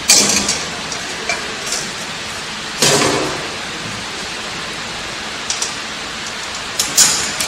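Metal clinks and knocks as a steel connecting rod is fitted between the side plates of a bucket elevator frame: sharp taps at the start, a louder knock about three seconds in, and more clinks near the end, over a steady hiss.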